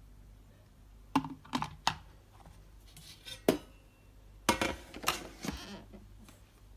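About seven sharp clicks and knocks at uneven intervals, like hard plastic parts of a filter coffee machine being handled, over a faint low steady hum.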